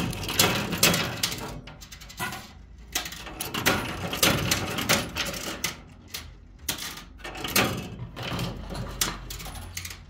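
Metal coins clinking and clattering inside a coin pusher arcade machine: a rapid, irregular run of sharp clinks as coins are dropped in and the pushing shelves shove the piles of peso coins about.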